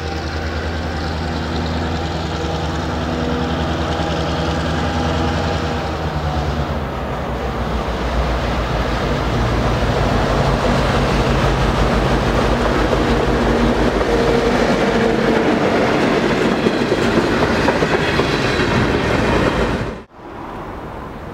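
EMD GP9 diesel-electric locomotive, with its 16-cylinder two-stroke 567 engine, running as it approaches and passes close by with a loaded lumber car, growing louder. The wheels clatter over the rail joints as it goes by, and the sound cuts off abruptly near the end.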